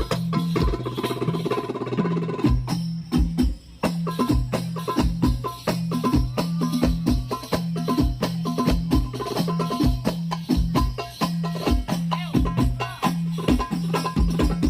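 Hadroh ensemble of hand frame drums and bass drum playing a fast, dense rhythm, amplified through a PA sound system, with a brief break about three and a half seconds in.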